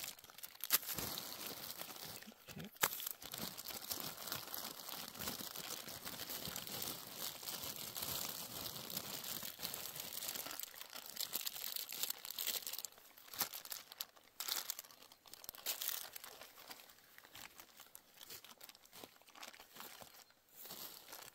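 Crinkling of a foil-lined backpacking meal pouch being handled and stirred, thick and continuous for roughly the first dozen seconds, then sparser and quieter.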